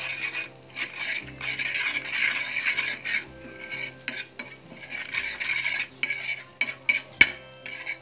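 Butter and chilli-masala chutney sizzling on a flat tawa while a slotted steel spatula stirs and spreads it, the sizzle coming in waves with each stroke. Near the end, a few sharp clinks of the metal spatula against the pan.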